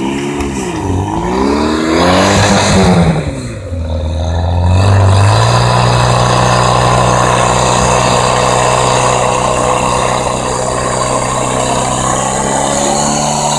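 Portable fire pump engine revved up and down several times, then from about five seconds in held at a steady high speed as it pumps water out through the hose lines.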